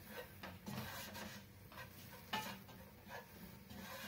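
Wooden spoon stirring fried onion and spice paste in a stainless steel pot, with irregular soft scrapes and taps against the pot's base and sides.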